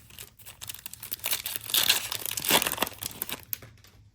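Crinkling and tearing of a basketball trading-card pack's plastic wrapper as it is ripped open, a dense crackle with its loudest tears about two seconds in.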